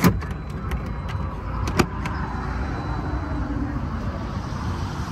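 2012 VW California camper's 2.0-litre twin-turbo diesel engine idling steadily. There is a sharp knock at the start and another about two seconds in, as the rear interior fittings are handled.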